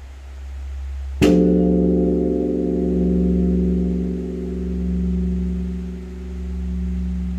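Large bronze Buddhist temple bell (beomjong) struck once about a second in, over the deep hum of the stroke before, tolled for the temple's dawn service. It rings on with a deep hum that swells and fades about every two seconds.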